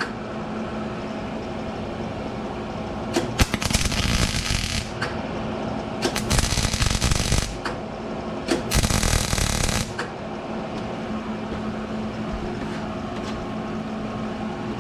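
Wire-feed (MIG) welder arc crackling in three short bursts of one to two seconds each, welding a broken stud back onto a vent wing window frame right next to the glass. A steady hum runs underneath between the bursts.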